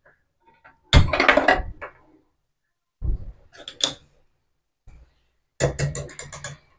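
Three short bursts of knocking and clattering from cookware being handled on a gas stovetop, each starting with a thud. The last burst, near the end, is a quick run of clicks.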